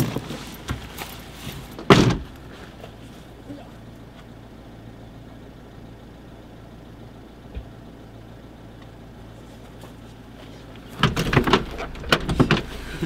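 Car door on a Mitsubishi Pajero Junior opened, then shut with a loud clunk about two seconds in, leaving the engine idling with a steady low hum heard from inside the cab. Near the end there is a run of clunks and rustling as the door is opened again and the driver climbs back in.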